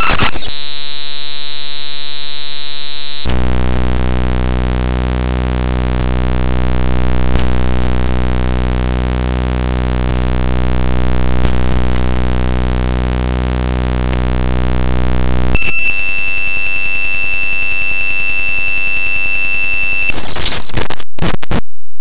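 Raw bytes of the Cinebench 2024.1.0 executable played as 8-bit mono audio: loud machine-like buzzing that switches abruptly between patterns. First a harsh buzz, then a long low drone that swells and fades slowly three times, then a higher buzz with thin whistling tones, breaking into crackles and going silent near the end.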